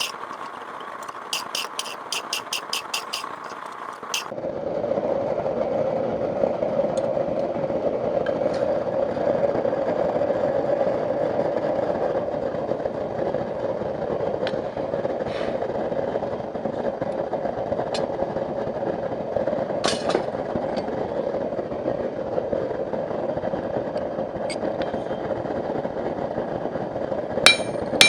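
Hammer striking hot steel on an anvil in quick runs of ringing blows. After about four seconds a steady machine roar takes over, with a few light clinks of metal. The rapid hammering comes back near the end.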